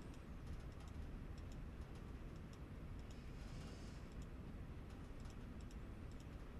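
Faint, irregular computer mouse clicks over a low steady hum.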